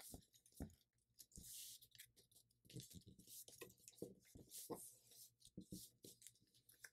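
Faint rustling and crinkling of a thin sheet of paper being folded and creased by hand, with scattered soft ticks and light taps.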